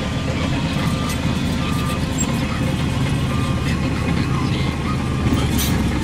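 A heavy construction machine's diesel engine running with a deep, steady rumble. A reversing alarm beeps about once a second and stops about two seconds in.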